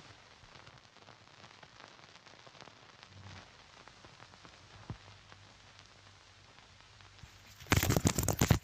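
Surface noise of a worn 16 mm film soundtrack: a faint hiss and crackle over a low hum, with a single click about five seconds in. Near the end a loud burst of dense crackling lasts just under a second.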